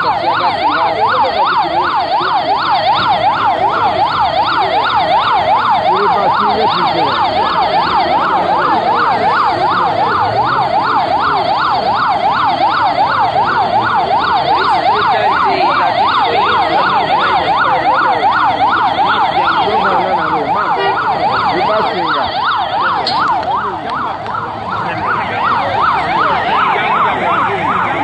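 Electronic siren in a fast yelp, its pitch sweeping up and down several times a second without a break, dipping slightly in level near the end.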